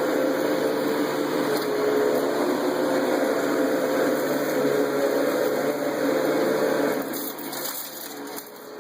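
Sharp 12-amp Supercharged Twin Energy vacuum cleaner running while vacuuming, a steady motor hum with airflow noise. Its sound drops away about seven seconds in.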